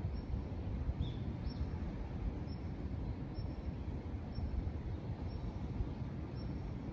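Steady low rushing noise of steam venting from volcanic fumaroles.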